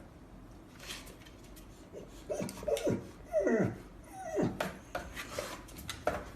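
A dog giving several short whining cries, each falling sharply in pitch, with a few knocks and scuffles around them.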